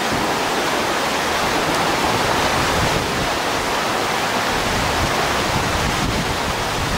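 Whitewater rapids of a canoe slalom course rushing steadily.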